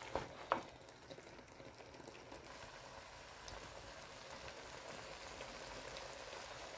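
Chicken, Brussels sprouts and potatoes sizzling faintly in a clay pot, a steady low hiss of cooking. Two light knocks of a wooden spoon against the pot come within the first second.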